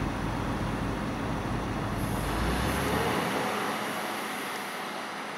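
Construction-site machinery: a low diesel-engine rumble under a steady wash of site and traffic noise. The rumble drops away about halfway through, and the rest fades gradually.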